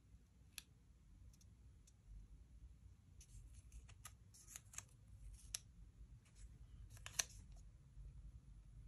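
Quiet handling of planner stickers and paper: faint, scattered clicks and short rustles, the sharpest click about seven seconds in.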